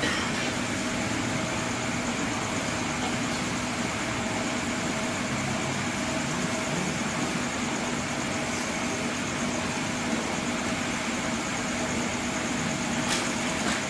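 Steady machine hum at a constant pitch, with a faint click near the end.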